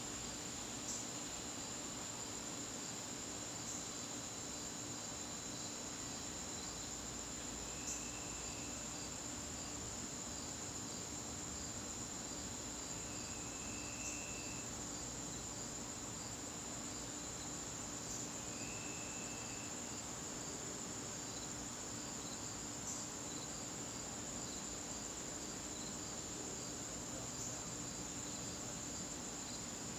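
Crickets trilling in a steady, unbroken high-pitched chorus, with three short lower notes from another caller about five seconds apart in the middle, over a faint steady low hum.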